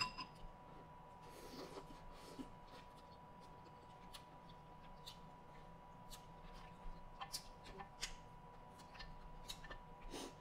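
Faint, scattered clicks of mussel shells knocking together as fingers pick through a dish of mussels and shrimp, opening with a single sharp clink of a spoon against a glass sauce bowl.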